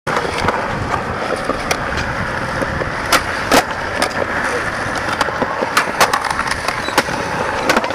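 Skateboard wheels rolling on concrete, a steady rumble broken by many sharp clacks of the board hitting the ground, the loudest about three seconds in, around six seconds and near the end.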